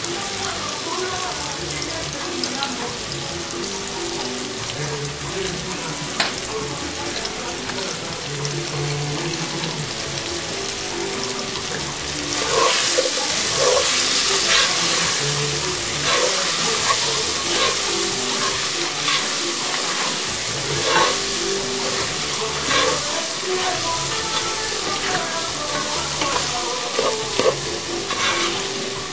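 Food sizzling in hot oil in a frying pan. The sizzle gets louder about twelve seconds in, and from then on a utensil scrapes and stirs through the pan again and again.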